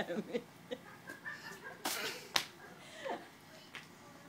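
A stick whacking a paper piñata: two sharp smacks about half a second apart near the middle, hard hits that split the piñata.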